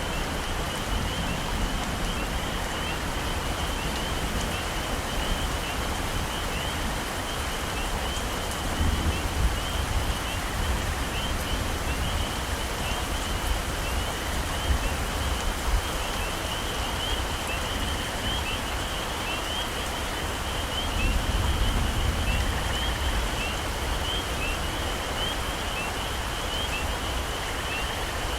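Heavy rain falling steadily on tropical forest foliage, with a constant high chirping chorus of calling animals. Low rumbles swell about nine seconds in and again around twenty-one seconds.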